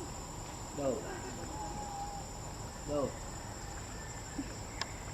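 Insects droning steadily on two high-pitched notes. Two short, steeply sweeping calls cut in about a second in and again about three seconds in.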